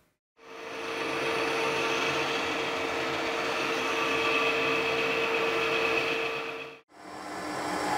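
Harrison 140 metal lathe running while a boring bar cuts inside the bore of a spinning metal workpiece: a steady machine whine under a cutting hiss. It fades in about half a second in, breaks off for a moment near the end, then carries on.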